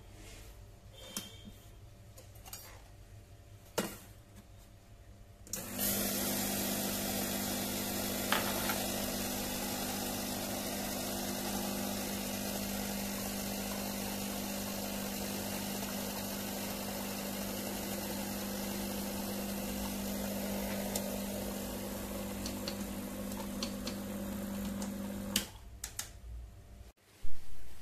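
Tecnora Classico espresso machine's pump running steadily for about twenty seconds, a hum with a hiss of hot water flowing through the empty group head, then cutting off. A few light clicks come before it and a loud knock near the end.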